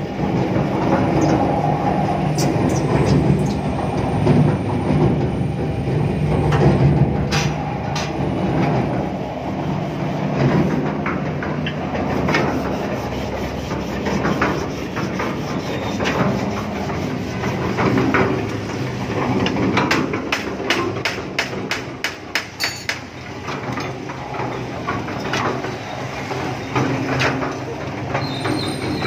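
A 500-litre concrete mixer, its drum belt-driven by a 7.5 hp induction motor, running on its trial test: a steady mechanical clatter from the turning drum and drive, with a quick run of clicks about twenty seconds in.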